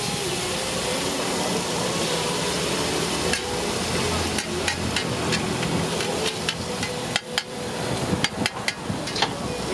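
Pork belly slices and cut sausages sizzling on a hot flat-top griddle, a steady hiss. From about three seconds in there is a run of sharp clicks and taps, thickest in the second half.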